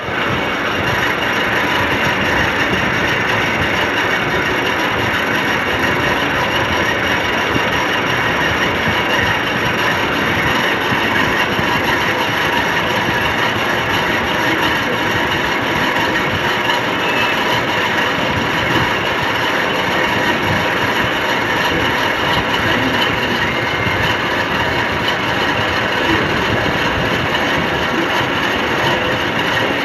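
Metal lathe running steadily while turning a harvester pulley, a constant mechanical whir and rattle of gears and chuck with no letup.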